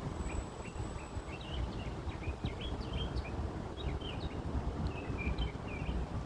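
Songbird singing a steady run of short, quick high chirps, over a constant low rumble of city noise.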